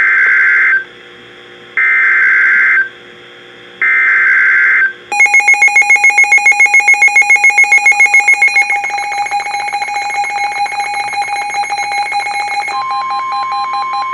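NOAA Weather Radio SAME alert header: three one-second bursts of screeching digital data, two seconds apart. Then an electronic alarm tone starts, pulsing rapidly for about three seconds before holding steady, with a further steady tone coming in near the end.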